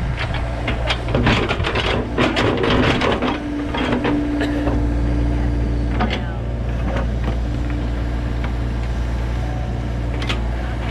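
Excavator digging: its diesel engine runs steadily while the bucket scrapes and clanks through soil, with a cluster of knocks and scrapes in the first few seconds and more near the end. A steady whine holds for about two seconds near the middle.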